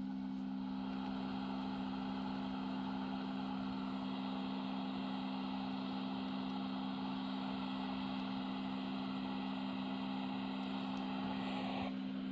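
Blower of a Philips CoughAssist E70 insufflator-exsufflator running with an even rush of air that stops abruptly near the end, over a steady low hum.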